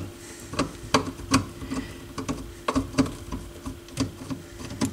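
Irregular light clicks and taps of a tool against small metal parts as a screw and bracket are worked loose at the end of a vintage stereo receiver's dial assembly, over a faint steady hum.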